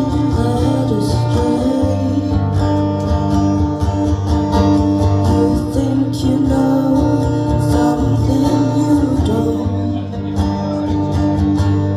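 Live acoustic guitar music, strummed, with a singing voice over it.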